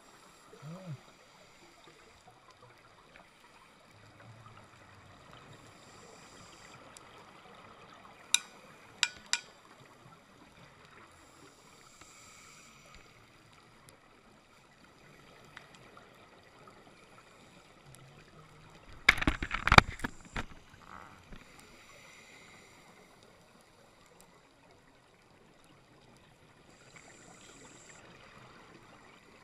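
Muffled underwater sound through a camera housing on a scuba dive: a diver's regulator breathing, a soft hiss every five or six seconds over a steady background hiss. Three sharp clicks come about eight seconds in, and a cluster of loud knocks comes around nineteen seconds in.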